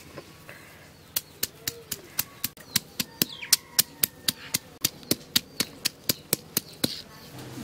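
Stone pestle pounding red onion petals on a flat stone grinding slab (shil-nora): a steady run of sharp knocks, about three or four a second, starting about a second in and stopping near the end.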